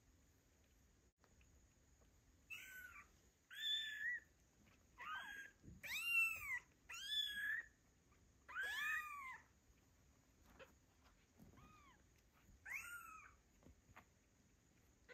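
Two-week-old kittens meowing, calling for their mother: a run of about six high meows, each rising then falling in pitch, then two more near the end, the first of them faint.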